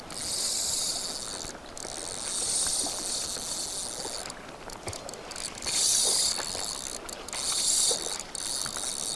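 Fly reel's click-and-pawl drag ratcheting in several high-pitched bursts with short breaks, as a hooked fish is played on the line.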